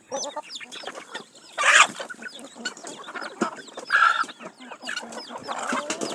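A flock of chickens clucking and peeping, with many short chirps throughout and a loud harsh squawk just before two seconds in, and another about four seconds in.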